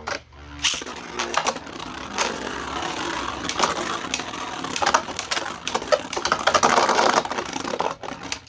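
3D-printed Beyblade spinning tops whirring and clattering in a plastic stadium. They rattle with many quick sharp clicks as they strike each other and the stadium walls, and a louder stretch of clashing comes about a second before the end.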